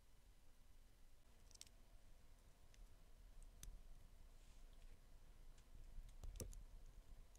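A few faint, scattered clicks of plastic LEGO minifigure pieces being handled and fitted together in the fingers, the loudest about six seconds in.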